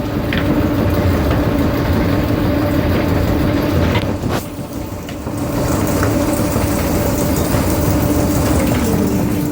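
Komsilaj silage baling and packing machine running while packing cotton: loud, steady machinery noise under a steady hum, with a sharp clank about four seconds in.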